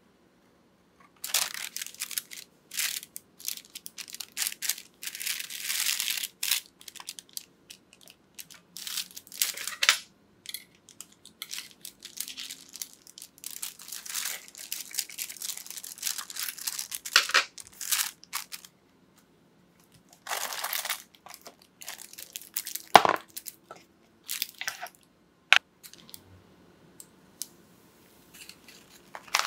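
Parchment paper crinkling and rustling in irregular bursts as it is handled over a freshly baked red velvet sponge sheet, with a thin spatula scraping around the inside edge of the baking pan at the start. A single sharp knock comes about two-thirds of the way through, and the paper is peeled off the sponge near the end.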